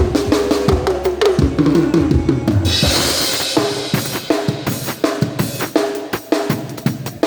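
Drum kit played during a band's sound check: a run of tom hits stepping down in pitch, a cymbal crash about three seconds in, then a steady beat of kick and snare.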